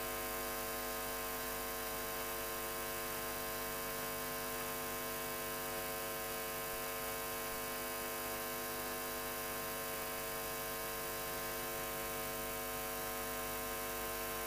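Steady electrical hum from the microphone and sound system, a constant buzz of many even tones with no change, and no speech over it.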